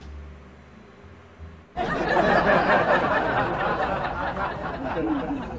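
Loud burst of laughter breaking out about two seconds in and carrying on for several seconds before tailing off.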